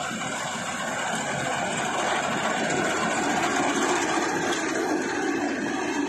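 Rice combine harvester running as it cuts through the paddy, a steady mix of engine and machinery noise that grows louder over the first few seconds as the machine comes close.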